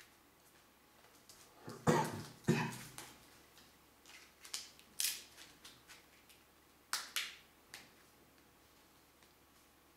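Plastic clicks and snaps of a Samsung Galaxy S4 being put together by hand: the battery pressed into its bay, with two heavier knocks about two seconds in, then a run of sharper clicks as the thin back cover is snapped on around the edges.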